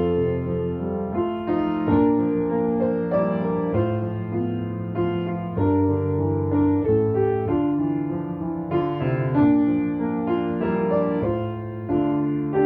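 Instrumental piano music, chords held and changing every second or so.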